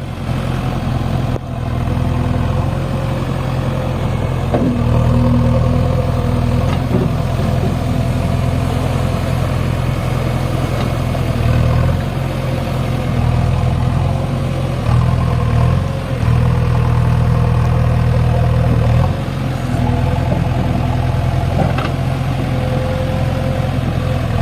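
Diesel engine of a JCB backhoe loader running steadily, its note shifting a few times as the load changes.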